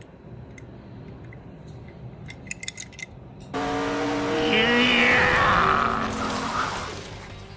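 Low hiss with a few light clicks, then, about three and a half seconds in, a car engine starts up suddenly and runs loud with a tyre skid squealing down in pitch near the middle.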